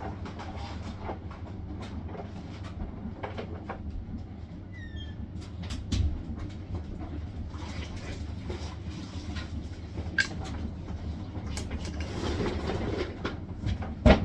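Hisense washing machine running: a steady low drum hum with irregular clunks and rattles, and a sharp knock near the end.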